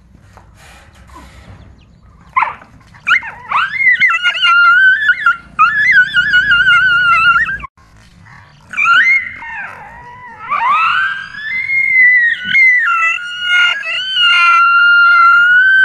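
A frightened dog howling and yelping, long high-pitched wavering cries. The cries start about three seconds in, break off briefly near the middle, then return as one long drawn-out wail to the end.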